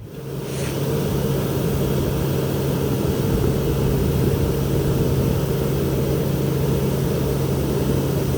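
Heavy machine engine running steadily with a constant hum, mixed with wind rushing over the microphone; it cuts in abruptly at the start.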